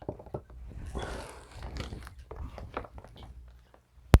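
Silicone kneading mat being handled and peeled apart where it sticks to itself: rustling and scattered small clicks, with one sharp snap near the end.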